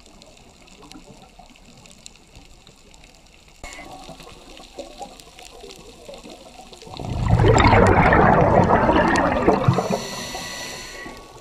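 Scuba exhalation bubbles from a regulator rushing past the underwater camera, a loud bubbling burst of about three seconds in the second half, over faint underwater clicking.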